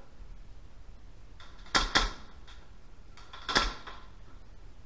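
Airsoft gun shots: a quick pair about two seconds in, then a single shot about a second and a half later, each sharp with a short ringing tail.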